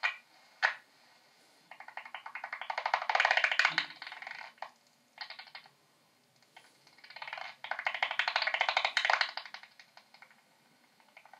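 Bat echolocation calls made audible by an Echo Meter Touch 2 bat detector: rapid click trains that speed up into dense buzzes, twice, with a few short ticking runs between.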